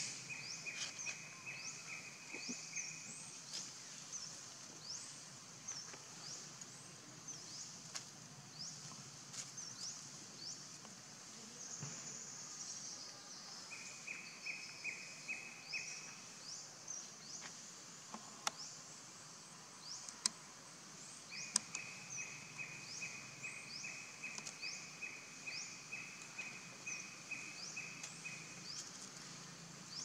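Outdoor wildlife ambience: high, rising chirps repeating about once or twice a second throughout, with three spells of a lower, rapid trill lasting a few seconds each, and a couple of sharp clicks about two-thirds of the way in.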